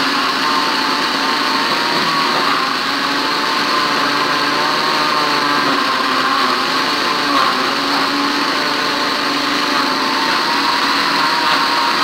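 Mondial electric blender running steadily, its motor blending papaya chunks with gelatin and condensed milk into a thick mix. A motor whine wavers slightly in pitch as the load shifts.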